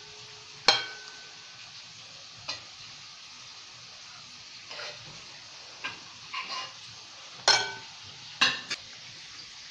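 Metal spoon clinking against a bowl and the rim of a metal cake tin while thick syrup is spooned over a cake. There are about nine short clinks over a steady soft hiss, the loudest with a brief ring about a second in and again near the end.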